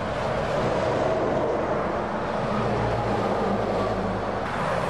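Articulated lorries passing at motorway speed: steady tyre and road noise with the low drone of a diesel engine, which grows stronger about two seconds in as a lorry goes by.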